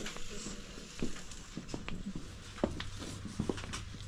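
Scattered light clicks and taps of small goods being picked up and handled, about eight in all, over a steady low hum of the shop.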